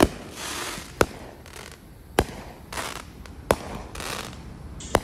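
Aerial fireworks going off: five sharp bangs about a second apart, with crackling glitter from the bursts between them.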